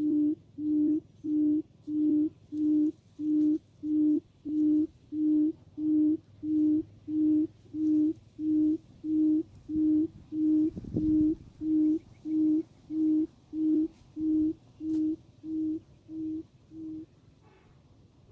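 A quail's low hooting call, one even hoot about every two-thirds of a second, growing fainter and stopping a second or so before the end. It is the calling used to lure quail to the net trap. A brief low rumble comes about eleven seconds in.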